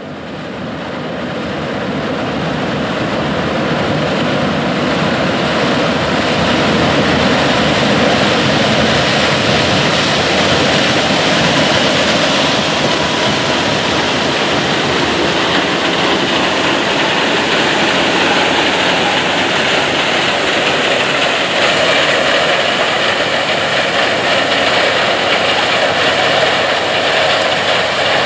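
Claas Lexion 7500 Terra-Trac combine harvesting corn with a 12-row chopping corn head, its engine and machinery running steadily as the stalks are cut and chopped. The sound fades in over the first few seconds, then holds level.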